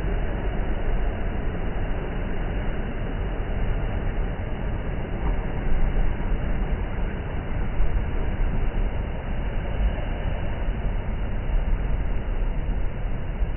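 Wind buffeting the microphone: a steady, loud rumble that gusts up and down, heaviest in the deep low end.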